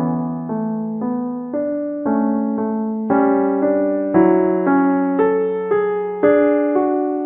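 Music: piano chords struck about twice a second, each fading before the next, in a house track mixed for 3D headphone listening.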